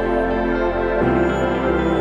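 Background music with slow, sustained chords; the bass and chord shift about a second in.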